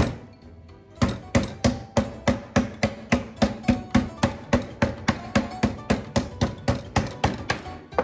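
Metal meat mallet pounding a raw beef steak on a wooden cutting board to tenderise it: one blow, a pause of about a second, then a steady run of blows about four a second.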